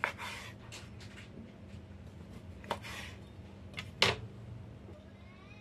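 Chef's knife slicing Chinese dried sausage on a wooden cutting board: a handful of irregular knocks of the blade on the board, the loudest about four seconds in.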